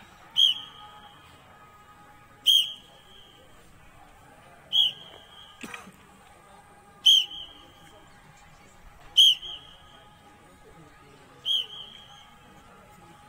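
Short, sharp blasts on a sports whistle, six of them evenly spaced about every two seconds, pacing a group's sit-up repetitions.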